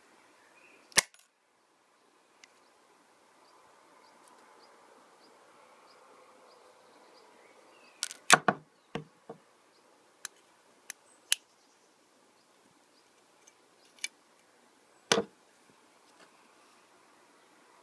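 Metal micro-SIM card cutter clicking and snapping as it is handled and pressed: one sharp snap about a second in, a quick cluster of clicks around the middle, scattered single clicks after that and another strong snap near the end.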